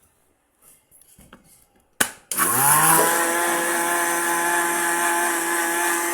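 Blender's brushed motor switched on with a click, spinning up with a rising whine and then running steadily at full speed. The motor runs because a small spring behind a carbon brush now holds the brush against the commutator, a temporary fix for a brush that had lost contact.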